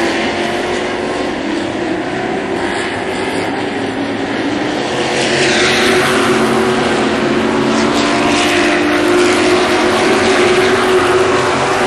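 A pack of Sportsman-class stock cars racing on a short oval, their engines running hard at high revs in a loud, steady drone. A group of cars sweeps close past about halfway through, and again near the end, the sound swelling and then falling away.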